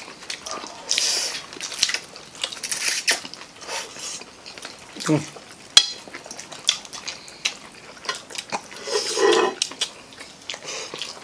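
Several people eating: forks and spoons clicking and scraping on plates, with chewing and crunchy bites into breaded fried chicken.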